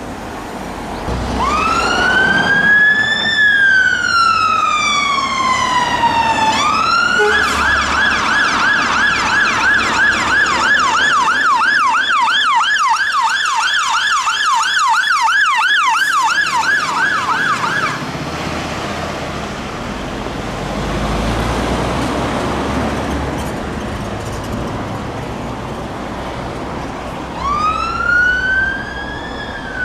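Scania fire engine's siren sounding as it passes: one slow wail that rises and falls, then a fast yelp of about three or four sweeps a second that runs for around ten seconds and cuts off suddenly. Engine and road noise from the traffic follows, and a siren wail starts rising again near the end.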